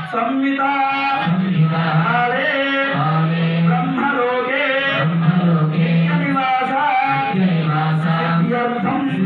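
Male voices chanting Vedic Sanskrit mantras in a steady recitation, each phrase held mostly on one note for about a second before a short break.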